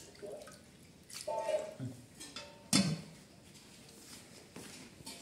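A serving spoon scraping and knocking in an aluminium cooking pot as curry is dished out, with scattered clinks and one sharper clatter a little under three seconds in.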